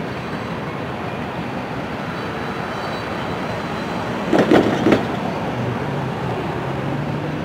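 Freight train tank cars rolling across a steel girder bridge: a steady rumble of wheels on rail, broken about four and a half seconds in by a quick run of three or four loud clanks.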